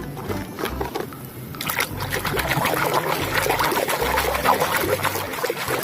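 Water running and splashing over a muddy toy as it is rinsed, getting louder about two seconds in.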